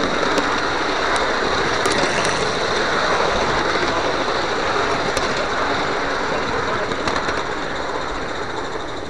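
Live-steam garden-scale locomotive, a Roundhouse Sandy River & Rangeley Lakes No. 24, running along the track with a steady hiss of steam and a few light clicks, heard up close from aboard the engine.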